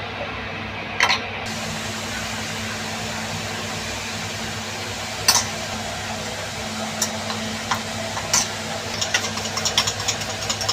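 A steady mechanical hum with a few single sharp clicks, then a quick run of light clicks and clatters near the end.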